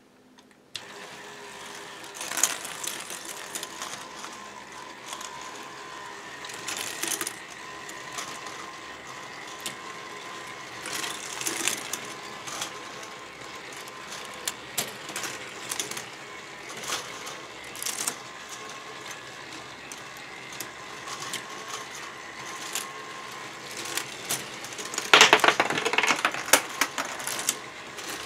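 All-K'NEX automated parts feeder running, powered by a single electric motor: a steady motor hum under plastic gears and parts clicking and clattering, with a burst of rapid clattering near the end.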